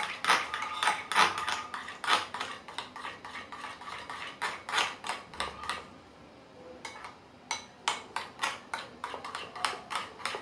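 A spoon clinking and scraping against a container while stirring a glue-based slime mixture, in quick repeated strokes, with a short pause about six seconds in.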